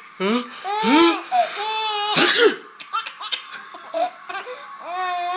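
An 8-month-old baby laughing hard in repeated high-pitched bursts, with short breaths between them. The laughter is set off by an adult's sneezes.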